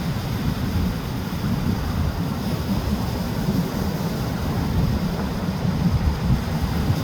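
Surf from big waves washing in, with wind buffeting the microphone in a constant low rumble.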